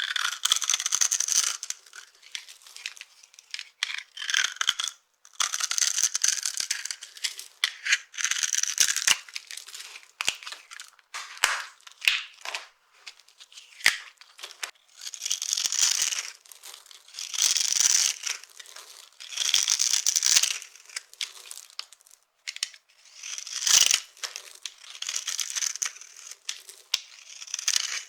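Dry soap being crushed and crumbled, crisp crunching and crackling in short irregular bursts with brief pauses between.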